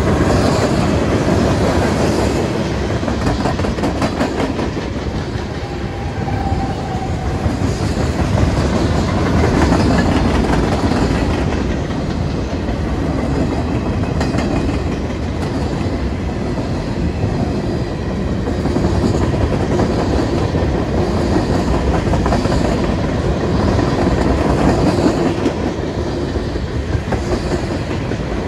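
CSX freight train's tank cars and covered hoppers rolling steadily through a grade crossing, wheels clicking over the rail joints, with the crossing's WRRS mini bell ringing over the wheel noise.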